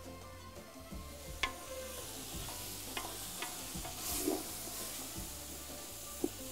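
Wooden spoon stirring diced potatoes and carrots frying in tomato paste and spices in a large aluminium pot, with a steady sizzle and about four sharp knocks of the spoon against the pot.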